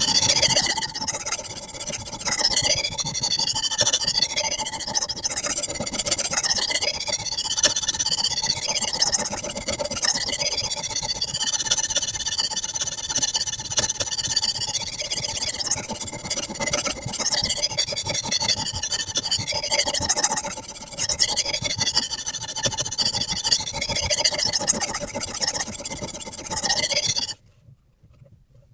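Sharpening stone on a guided sharpening system rubbing back and forth along the edge of a high-carbon steel knife blade, a continuous gritty rasping that stops abruptly near the end.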